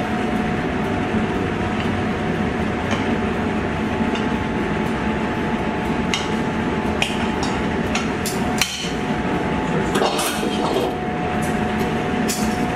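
Scattered sharp metallic clinks and knocks of kitchen utensils against a steel sauté pan as pasta is plated, the loudest knock about nine seconds in, over a steady hum of kitchen ventilation.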